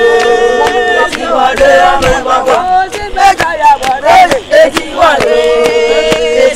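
A group of women singing a chant together while walking, with long held notes at the start and again about five seconds in. Sharp percussive hits keep time throughout.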